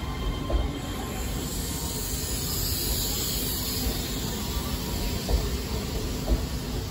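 Keihan 3000-series electric train rolling slowly into a platform as it brakes to a stop: a steady hissing rush over a low rumble, loudest about halfway through, with a few low thuds from the wheels.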